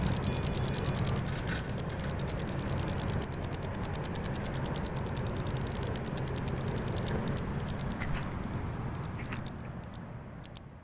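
A cricket chirping: a high-pitched note repeated in fast, even pulses, fading out near the end.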